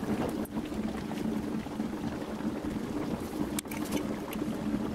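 Brazing torch flame hissing steadily as it heats a steel square-tube joint, with a low steady hum underneath.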